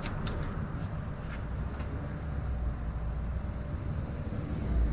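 Steady low background rumble with a few faint light clicks in the first two seconds.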